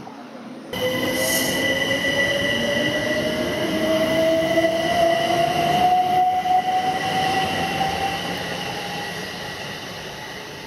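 Class 377 Electrostar electric multiple unit accelerating away, its traction motors whining in a tone that rises steadily in pitch over the rolling noise, with steady high tones above it. It starts abruptly about a second in and fades as the train draws away.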